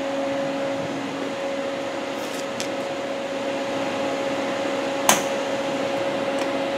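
Robinair Cooltech 34134Z A/C recovery machine humming steadily with two held tones. A few light clicks sound, with one sharper click about five seconds in as the panel valves are handled.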